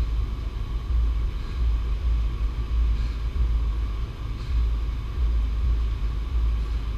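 A steady, uneven low rumble that surges and eases every second or so, with a faint steady hum above it.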